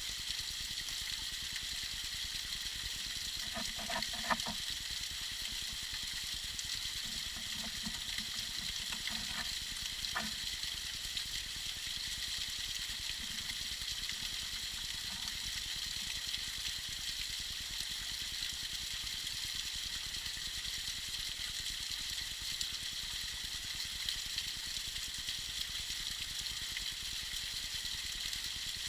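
Tiny icy waterfall trickling and splashing as a steady high hiss, with a few faint plinks of drops about four seconds in and again a few seconds later.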